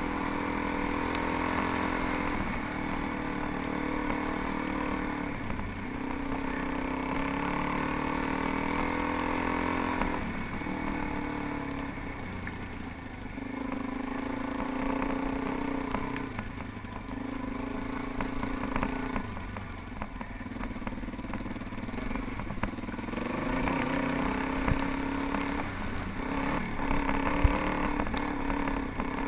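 Suzuki DR-Z400E's single-cylinder four-stroke engine running on a dirt ride, its pitch rising and falling every few seconds as the throttle opens and closes. A couple of sharp knocks come near the end.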